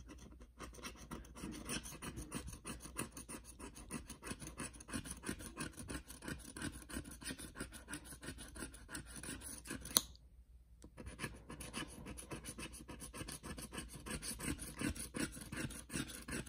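A dog tag scraped rapidly back and forth across a lottery scratch ticket, rubbing off a stubborn scratch-off coating in quick strokes. A sharp click comes about ten seconds in, then a brief pause before the scratching resumes.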